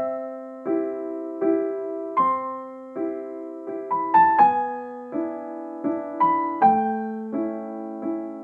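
Gentle piano-style keyboard music: soft chords struck about every three-quarters of a second, each fading before the next, with a simple melody on top.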